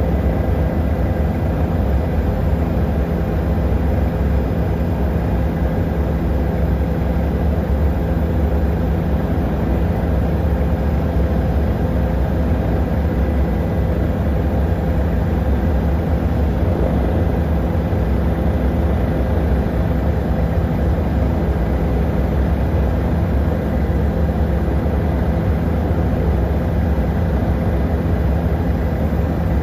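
Helicopter in flight: a loud, steady drone of engine and rotor with several low hum tones.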